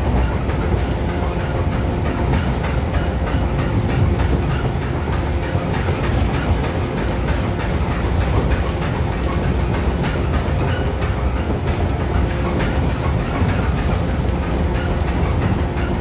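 Running sound inside a JR 415 series 500 subseries electric motor car (MoHa 415-520) at steady speed: a continuous rumble with a steady hum of several tones, and wheels clicking over rail joints.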